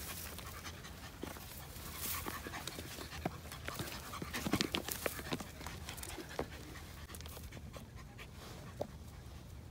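A small poodle panting as it scrambles up a rocky trail, with scattered clicks and scuffs of steps on stone.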